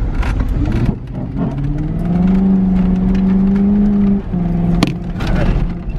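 Mercury Grand Marquis 4.6-litre V8, running on cooking oil in place of engine oil, heard from inside the cabin under hard acceleration. The engine note climbs, holds steady for about two seconds, then drops about four seconds in. A single sharp click follows.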